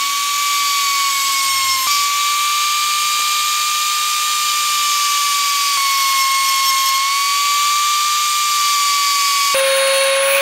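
Electric mini grinder with a cut-off disc running at a steady high whine, with a hiss, as it cuts through metal wire. The pitch drops lower near the end.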